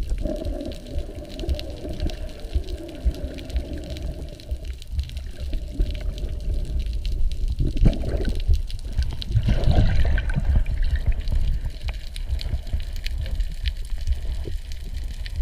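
Underwater water noise picked up by a submerged action camera: a steady low rumble and rush of seawater moving past the housing. There is a faint wavering hum in the first few seconds, and a louder surge of rushing, bubbling water from about eight to eleven seconds in.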